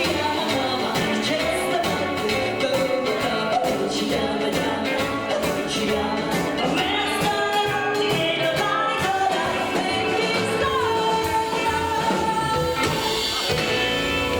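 Live rockabilly band playing a song with a singer's voice over it, loud and continuous.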